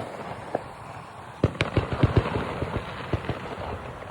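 Firecrackers popping: a quick, irregular string of sharp cracks of uneven loudness starting about a second and a half in and dying away toward the end.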